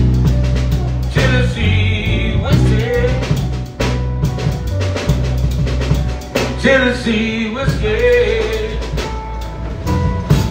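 Live band playing electric guitar, bass guitar and drum kit, with a man singing two phrases over the steady bass and drums.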